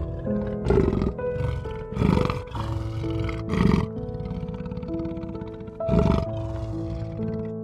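A big cat roaring or growling in four short bursts, spread a second or two apart, over background music.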